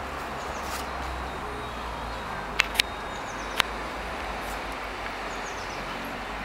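Steady background hiss with a low rumble, broken by three sharp clicks about halfway through: two close together, then a third just under a second later.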